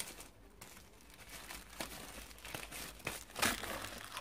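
Crinkling and rustling of cardboard and plastic packaging as hands rummage through a shipping box, in scattered bursts with a louder crinkle about three and a half seconds in.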